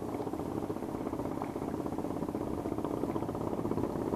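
Spinning reel being cranked steadily, its gears whirring with a fast, even rhythm as line and a jerkbait are wound in.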